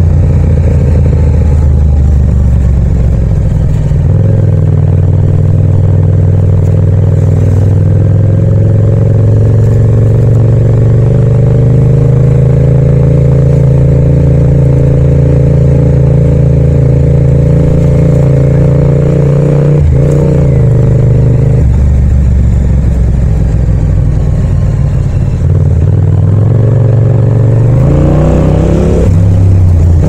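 Yamaha MT-07's parallel-twin engine and exhaust running under way at a fairly steady throttle, its pitch drifting slightly up and down. About two-thirds through the revs drop suddenly, and near the end the engine revs up again.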